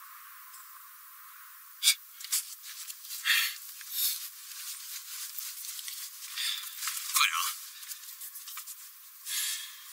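Cloth rustling and rubbing in short, irregular bursts, with a few sharp clicks: a towel being rubbed over the face and head. The sounds start about two seconds in and stop shortly before the end.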